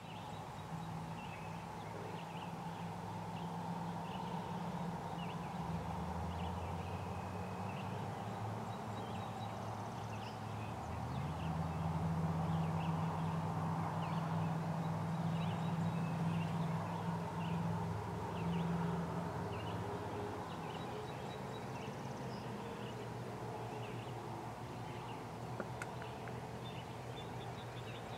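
Wild turkey gobbling, with songbirds chirping and a steady low hum underneath that shifts up in pitch twice.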